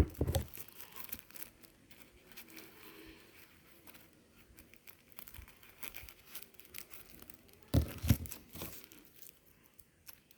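Plastic wrapper of a small prize packet being torn open and crinkled by hand, in scattered small crackles, with louder knocks near the start and about eight seconds in.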